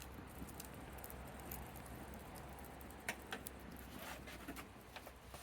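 Small wood campfire crackling: a handful of scattered sharp pops and clicks over a faint steady hum.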